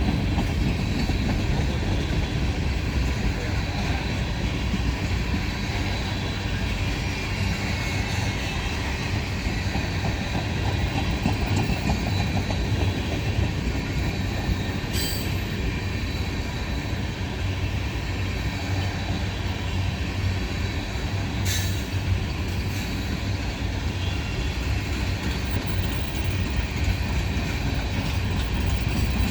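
Freight train rolling past on the rails in a steady rumble of wheels and cars. Two brief sharp metallic clicks come about halfway through and again a few seconds later.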